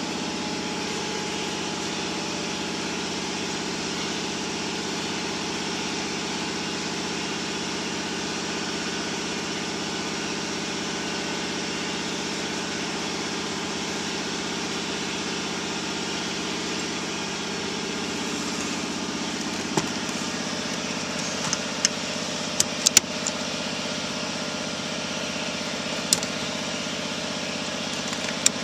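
BMW E34 525i's straight-six engine idling steadily. A few sharp clicks or taps come through in the last third.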